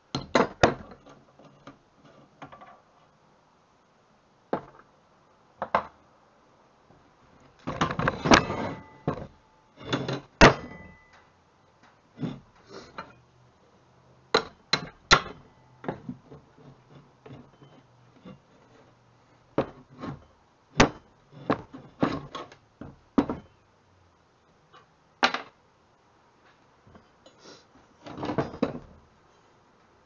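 Irregular metal clanks and knocks of hand tools against a steel clutch and brake pedal assembly being taken apart on a wooden workbench. Two longer stretches of rattling clatter come about eight seconds in and near the end.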